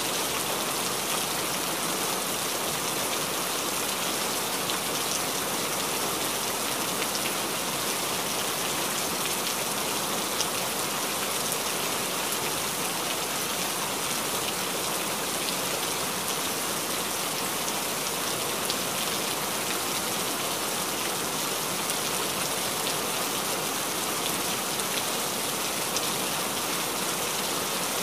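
Steady rain: an even, unbroken hiss with faint scattered drop ticks.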